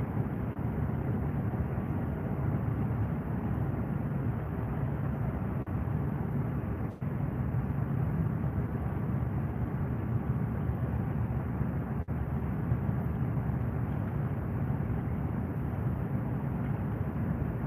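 Steady low rumbling noise with no distinct events, dropping out briefly twice.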